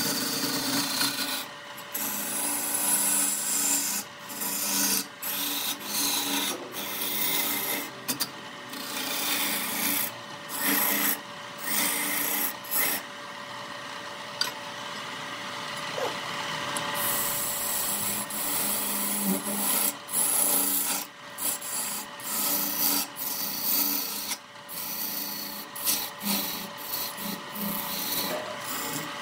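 Wood spinning on a lathe being scraped by a turning tool: a rough rubbing, rasping noise that stops and starts every second or so, with a faint steady hum underneath.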